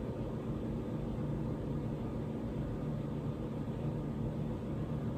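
Steady low background hum of room noise, even throughout, with no distinct events.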